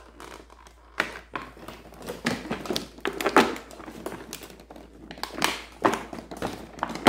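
Clear plastic bag crinkling and hard plastic toy-blaster parts clicking and knocking as they are handled and unwrapped, in irregular short strokes.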